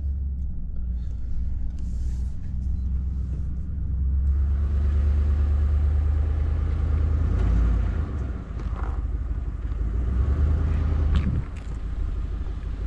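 Steady low rumble of a car on the move, with a brief sharper sound about eleven seconds in.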